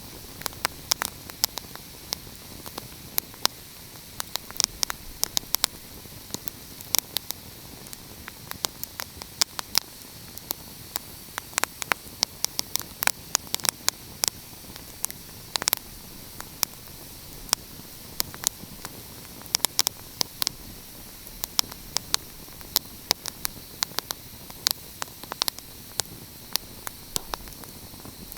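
Wood fire crackling: many sharp, irregular pops and snaps, several a second, over a steady hiss.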